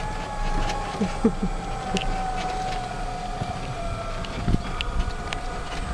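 Golf cart driving over a fairway: a steady motor whine that drifts slowly lower in pitch over a low rumble from the ride, with a few small knocks.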